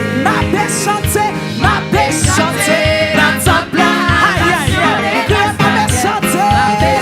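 Live church praise band playing an upbeat worship song, with singers over a steady beat and cymbal crashes.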